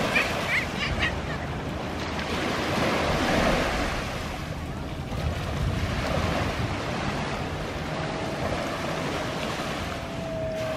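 Waves washing onto a beach, with wind buffeting the microphone. A faint steady drone joins about eight seconds in.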